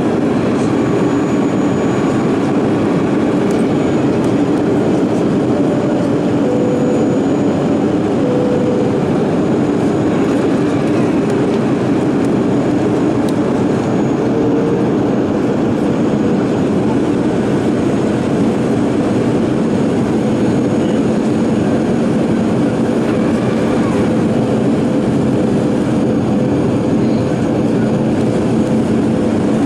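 Steady cabin noise inside a Boeing 737 on approach: the even rush of airflow and the drone of its turbofan engines, with a faint steady tone running under it.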